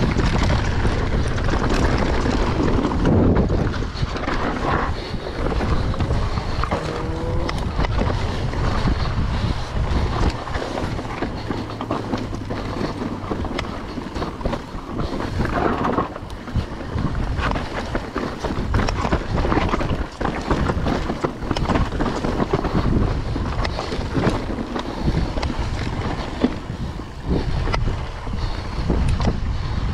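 Wind buffeting the action-camera microphone over the steady rumble of a Nukeproof Mega mountain bike's tyres on a rocky dirt trail at descending speed, with frequent small knocks and rattles from the bike over the stones.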